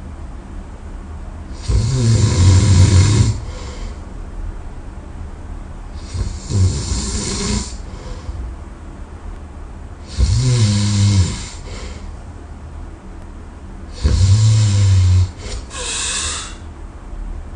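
A man snoring loudly in deep sleep: four long, low snores about four seconds apart, each lasting over a second, with a shorter breath near the end.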